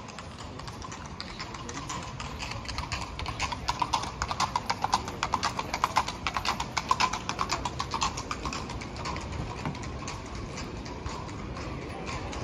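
Horse hooves clip-clopping at an even pace, louder toward the middle and fading as the horse passes.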